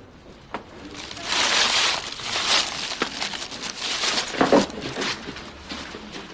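Rustling and crinkling with many small clicks, like something being handled. It starts about a second in, comes in several swells and fades after about five seconds.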